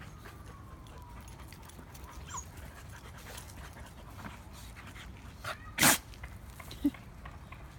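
A puppy panting and sniffing, broken about six seconds in by one loud, sharp sneeze that follows a shorter intake of breath, then a brief low sound about a second later.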